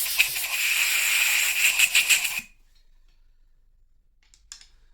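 Compressed-air blow gun hissing loudly, blasting swarf out of a drilled bolt hole in the engine block, then cutting off suddenly about halfway through; a few faint clicks follow.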